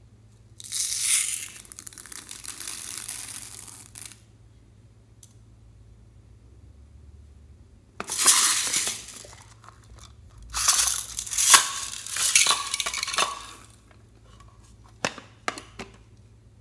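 Small plastic beads poured into a glass dish of slime, rattling and clinking in three pours of a few seconds each. A few sharp clicks follow near the end.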